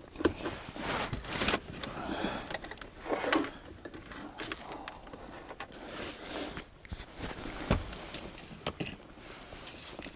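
Irregular handling noises: scraping, rustling and a few sharp clicks as a switch and wiring are fitted into a car's plastic ashtray by hand.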